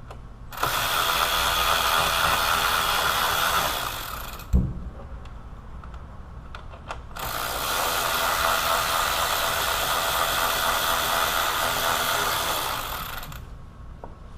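A cordless power tool running in two long runs, about four and then six seconds, driving a fastener on the fan assembly, with a single thump between the runs.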